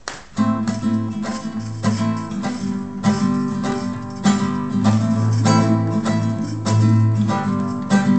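Acoustic guitar strummed in a steady rhythm, beginning a moment in: the chord intro of a song played live before the singing comes in.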